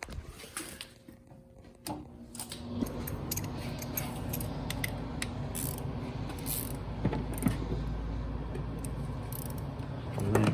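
A machine starts up about two seconds in and runs with a steady hum and low rumble, with scattered clicks and rattles over it.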